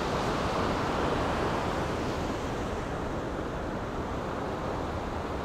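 Ocean surf breaking and washing up the beach: a steady rushing of waves that eases a little after the first couple of seconds.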